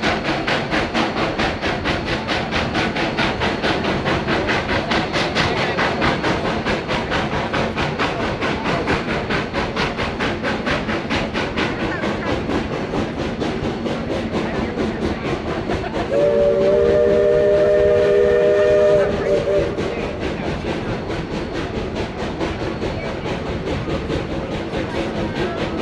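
Steam locomotive on the Georgetown Loop Railroad working uphill, its exhaust beating in fast, even chuffs that fade by about halfway. About two-thirds of the way through, its chime whistle blows one steady chord for about three seconds.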